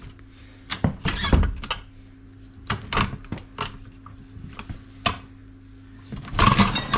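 Metal tools and car parts clinking and knocking as they are handled: scattered sharp clinks and thunks, with a denser clatter near the end.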